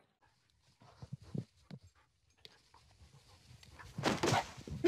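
Soft, scattered sounds of a bulldog nosing and pawing at a laptop screen, then a louder burst of hiss-like noise about four seconds in.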